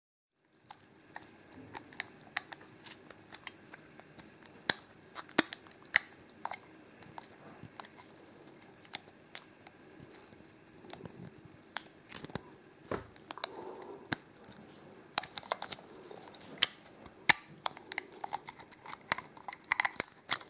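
Irregular sharp metallic clicks and light crinkling of a thin can-metal shim being pushed into a padlock's shackle, with the padlock clicking as it is pulled and pushed, the clicks coming thicker near the end.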